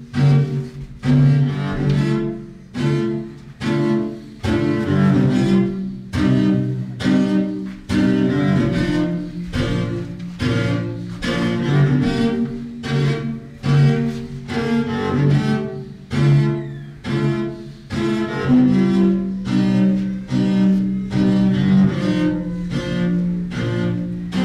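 Solo cello improvising a rhythmic figure of short, strongly attacked notes, about two a second, in its low register, with a longer held low note in the second half.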